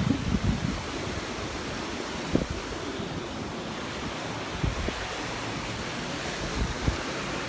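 Surf washing onto the beach, a steady rush, with wind buffeting the microphone in short gusts, the strongest right at the start and about two seconds in.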